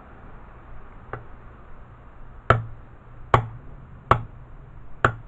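Light hammer taps driving a seal into a Villiers 9E transmission case: one faint tap, then four sharp taps a little under a second apart. They are evening up a seal that sits deeper on one side than the other.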